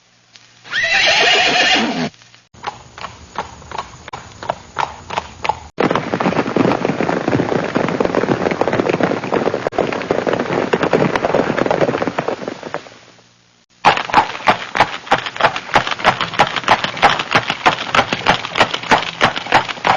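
Horse sound effects: a short whinny about a second in, then hooves clip-clopping at a walk, a denser, noisier stretch of hoofbeats that fades out, and finally crisp, even clip-clop at about three to four strikes a second.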